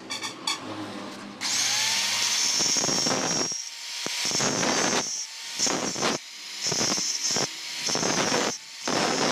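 Handheld angle grinder with a cutting disc, switched on about a second and a half in and running with a high whine, then cutting into a steel nail in a run of short bursts with brief gaps between them.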